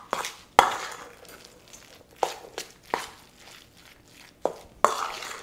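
A spoon mixing a thick crab cake mixture in a stainless steel bowl. The spoon knocks against the bowl about seven times at irregular intervals, with soft scraping and mushing in between.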